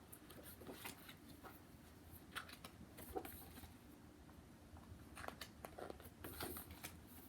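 Faint rustles and a few light taps of a large picture book being handled, over quiet room tone.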